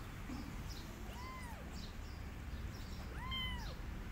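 A cat meows twice, about a second and about three seconds in: two short, high calls, each rising and then falling in pitch.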